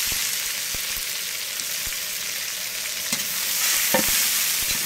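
Sliced onions, green chillies and curry leaves sizzling in hot oil in a large aluminium pot: the tempering for a chicken gravy. A long-handled ladle stirs them, knocking and scraping against the pot a few times in the second half.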